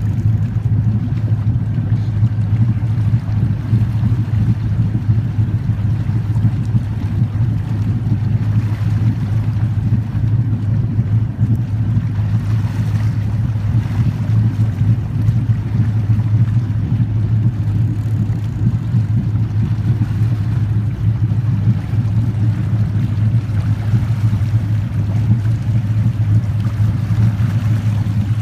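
Boat's outboard motor running steadily, a constant low hum and rumble.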